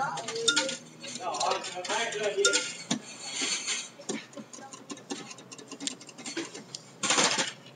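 Small metallic clicks and clinks at a vending machine, as money goes in and buttons are pressed. Indistinct voices talk during the first couple of seconds, and there is a louder clattering rustle near the end.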